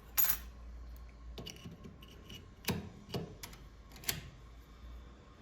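Metallic clicks and light scrapes from a Prodecoder Automatic decoder tool being turned and tensioned in a Yale 3+3 double-bit safe lock. There are about five separate clicks, the loudest just after the start, over a faint low hum.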